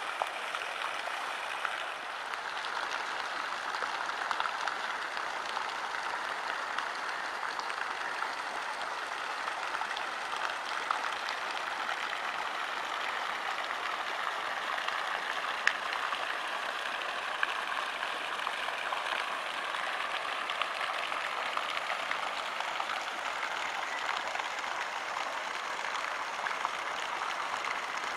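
Steady splashing and trickling of running water, with small clicks and drips scattered through it.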